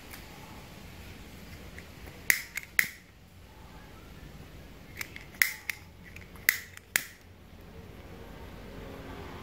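Sharp clicks in three quick clusters of about three each: one cluster a little over two seconds in, then two more close together around the middle.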